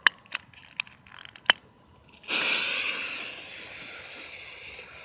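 A few sharp clicks, then about two seconds in a Dominator consumer firework fountain ignites with a sudden hiss of spraying sparks, which eases off a little but keeps going.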